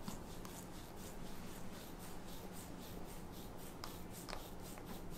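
A metal instrument-assisted soft-tissue tool scraping over bare skin on the lower back. It makes faint, quick, short rasping strokes, several a second.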